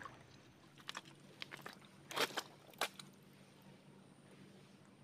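Footsteps through mangrove undergrowth: faint, scattered crunching and crackling, with two louder crunches a little after two seconds and near three seconds, then it settles.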